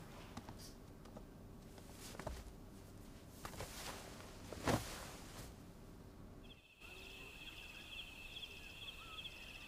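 Faint room noise with a few light knocks and one louder thud just under five seconds in. From about two-thirds of the way through, night insects chirp in a steady, rapidly pulsing trill.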